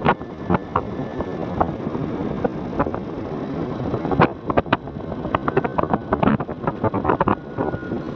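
Motorcycle riding along a rough forest dirt road: a steady rumble of engine and wind, with many irregular sharp knocks and rattles from the bumpy track.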